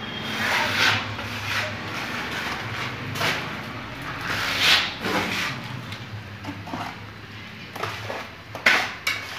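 Steel trowel spreading and scraping thick, rough texture plaster across a wall in a series of uneven strokes, over a steady low hum.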